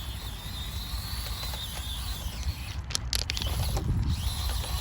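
Axial SCX24 Deadbolt micro crawler's small brushed motor and gearbox whining high as it is driven, the pitch wavering with the throttle; the whine stops a little past halfway and comes back near the end. A few sharp clicks sound around the middle and near the end.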